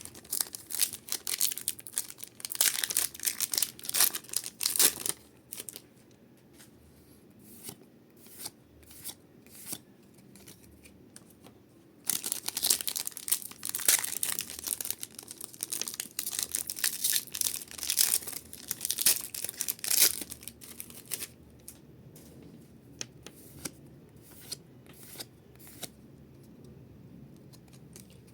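Foil Pokémon booster-pack wrappers being torn open and crinkled, in two spells of dense crackling, the second starting about twelve seconds in, then scattered light clicks and rustles.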